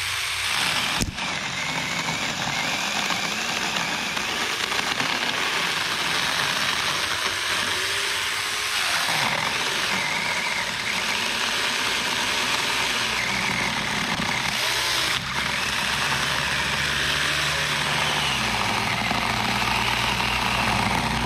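Saker battery-powered mini chainsaw with a 4-inch bar running steadily under load as it cuts deep into a tree trunk, breaking off for an instant about a second in and again near fifteen seconds.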